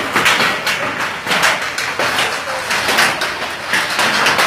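Torrential rain and hail falling: a loud steady noise dotted with many irregular sharp hailstone impacts.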